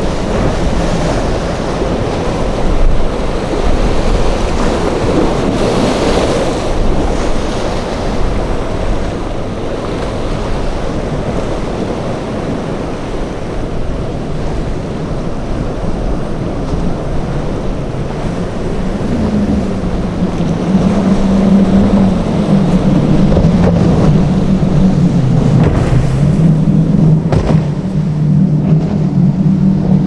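Surf and wind buffeting the microphone as boats run through breaking waves. From about 19 s in, a wavering engine drone rises over the surf: a Midnight Express's five Mercury Racing 450R supercharged V8 outboards running through the waves.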